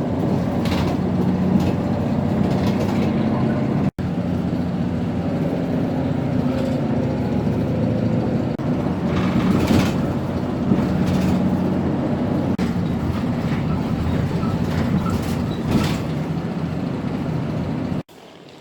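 Steady running noise inside a moving vehicle: a low engine hum with rumble. It is broken by sudden edit cuts about four seconds in and again near the end.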